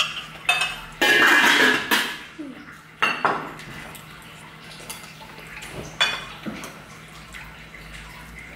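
Kitchen clatter: metal utensils knocking and clinking against pots and dishes in a few sharp strikes, with a louder second-long rush of noise about a second in.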